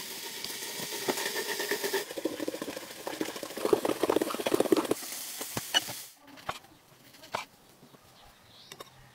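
Liquid poured from a plastic bottle into a glass bowl of ice: a hissing splash at first, then a lower, rapidly glugging pour that stops about six seconds in, followed by a few light clicks.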